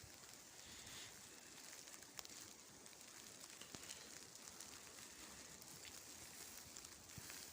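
Near silence: a faint outdoor hiss with a few soft, scattered ticks.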